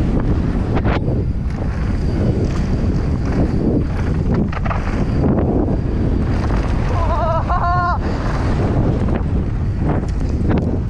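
Wind buffeting the microphone of a mountain biker's camera during a fast descent on a dirt trail, with scattered knocks and rattles from the bike running over bumps. A short, wavering high tone comes in about seven seconds in.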